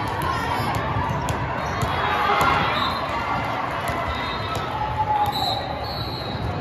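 Volleyball tournament hall din: crowd chatter and calls from many courts, with scattered sharp thuds of volleyballs being hit and bouncing on the floor.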